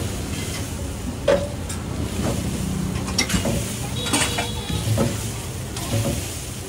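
Metal spatula scraping and clacking on a large flat griddle as rava dosa batter is worked, several sharp strokes about a second apart, one with a brief high metallic ring about four seconds in, over a steady background rush.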